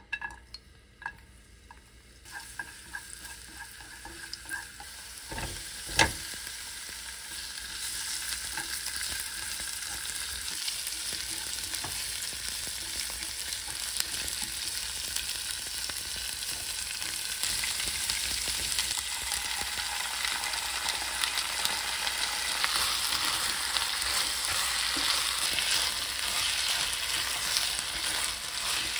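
Food sizzling in hot oil in a nonstick pan as minced garlic, then sausages and vegetables are stir-fried, the sizzle growing louder as the pan fills. A few light taps come near the start, and a single sharp knock about six seconds in.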